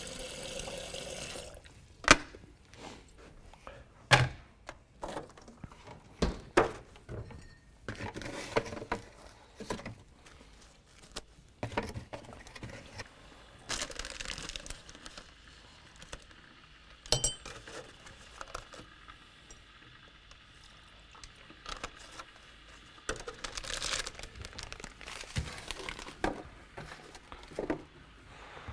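Someone making a hot drink at a kitchen worktop: sharp clinks and knocks of a mug and electric kettle being handled, rustling of a packet being opened, and liquid being poured.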